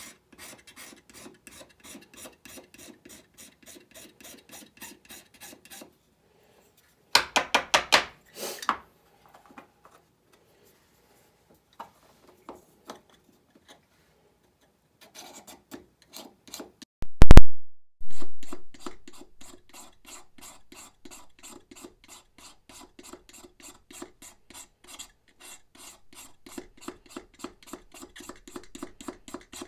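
Utility knife blade shaving thin layers off a soft 3D-printed plastic part in quick short scraping strokes, several a second. The scraping pauses in the middle for a few sharp clicks about seven seconds in and one very loud thump a little past the middle.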